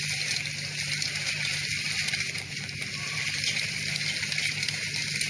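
Violent wind-driven hailstorm: a steady, dense rushing noise with no let-up.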